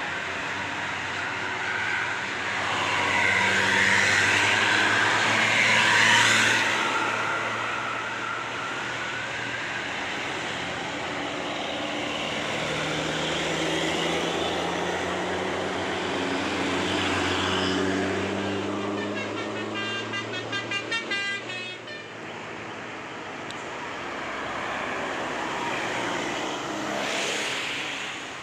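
Large buses labouring up a hill, their engines running with a pitch that slowly rises as they pull; one passes close, loudest about six seconds in. About twenty seconds in comes a quick run of short toots from a multi-tone telolet bus horn.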